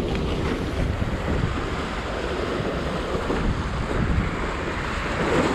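Choppy harbour water sloshing and splashing against the boulders of a rock breakwater, with wind buffeting the microphone.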